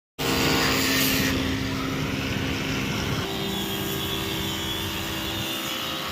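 A steady mechanical hum, like a motor running, whose pitch steps down a little past three seconds in.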